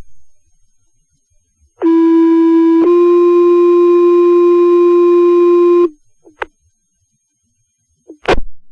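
Two-tone sequential paging tones over a fire dispatch radio channel, heard through a scanner: a steady tone for about a second, then a slightly higher tone held for about three seconds that cuts off suddenly. It is the tone-out that sets off the fire department's pagers ahead of the dispatch call. Short radio squelch clicks come before and after.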